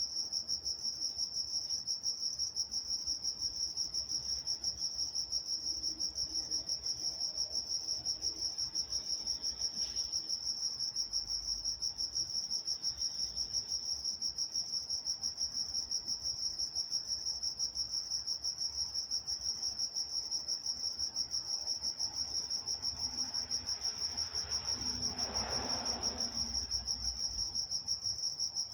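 Crickets chirping at night, a steady high-pitched chorus that pulses evenly about three times a second.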